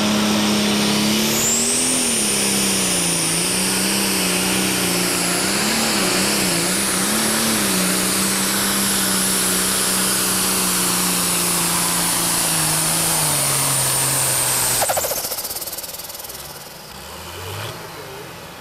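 Turbocharged diesel pro stock pulling tractor at full throttle dragging a weight-transfer sled, its turbo whistling high above the engine. The engine note wavers a few seconds in, sags as the sled bears down, and cuts off abruptly about fifteen seconds in as the pull ends.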